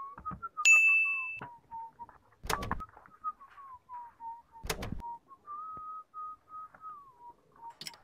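A whistled tune wanders up and down in pitch throughout. A single bright ding sounds just under a second in, and two dull thumps come about two and a half and four and a half seconds in.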